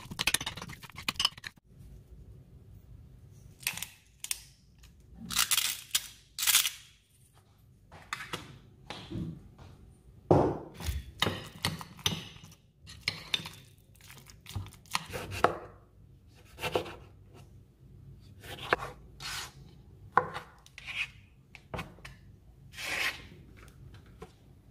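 A metal spoon mashing and stirring avocado in a ceramic bowl: irregular scrapes and clinks against the bowl, some strokes louder than others. Near the end, a knife on a plastic cutting board as chopped tomato goes into the bowl.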